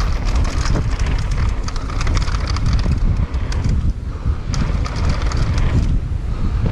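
Mountain bike riding down a dirt trail: wind buffeting the camera microphone with a heavy rumble, over tyre noise on loose dirt and a constant rattling and clicking from the bike over bumps.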